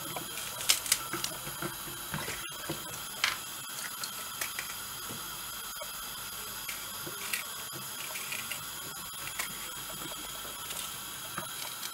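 Scattered light clicks, taps and small knocks of vegetables being handled in a plastic basin, over a steady background hiss.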